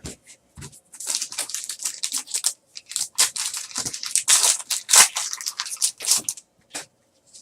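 Trading cards and their foil pack wrapper being handled, with an irregular run of crinkling and rustling that stops shortly after six seconds.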